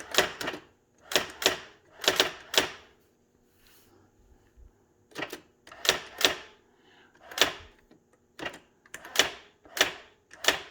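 Brother electronic daisy-wheel typewriter typing: sharp clacks at irregular spacing, singly and in quick pairs, with a pause of about two seconds a third of the way in.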